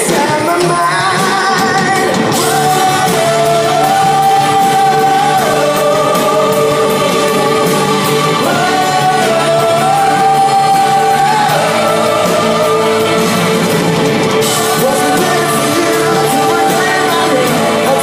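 Live band playing a song amplified over a stage PA, with long held sung notes over a steady accompaniment.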